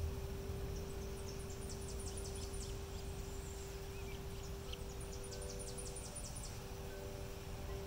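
Outdoor background noise with a steady low hum, broken twice by a short, rapid, high-pitched trill from a small bird, about eight notes a second, the second trill some three seconds after the first.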